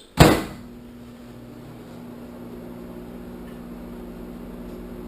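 Microwave oven: a loud single clack, then the oven starts running with a steady hum and a low, even drone.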